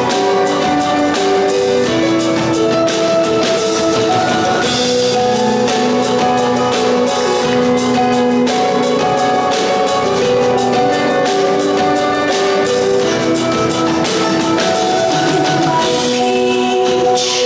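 Live band playing an instrumental passage: a Bösendorfer grand piano with bass guitar and a drum kit keeping a steady beat.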